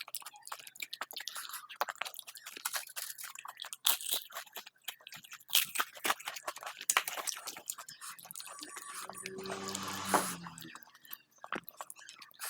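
Close-miked eating sounds: crunching and wet chewing in many short, irregular clicks and crackles, with a longer noisy stretch about nine seconds in.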